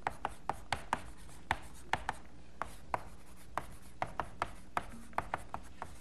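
Chalk tapping and scraping on a blackboard as code is written out: an irregular run of sharp taps, two or three a second.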